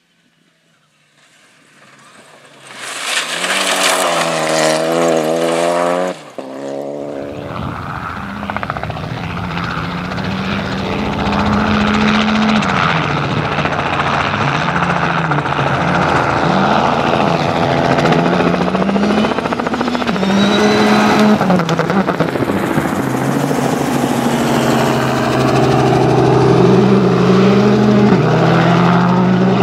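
A Renault Clio Rally5 rally car comes up out of quiet and passes at full throttle on gravel. Its engine note rises and falls through gear changes, then cuts off about six seconds in. After that, a Citroën C3 Rally2's turbocharged four-cylinder runs hard on the gravel stage, revving up and down through the gears, and near the end the steady drone of a low-flying helicopter joins in.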